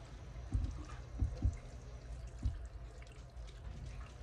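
Saucy cheesy spaghetti being pushed with a spoon out of a bowl and dropping into a glass baking dish: a few soft, wet thuds in the first half, over a low steady background.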